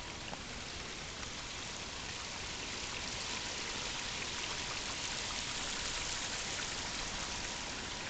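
Rain-swollen creek water splashing and rushing over rocks, a steady watery hiss that grows louder around the middle.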